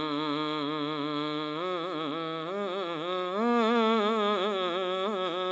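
A man singing a naat solo and unaccompanied, one long vocal line with a wide vibrato. It holds one note at first, then turns in quick ornaments, rising and growing loudest about three and a half seconds in.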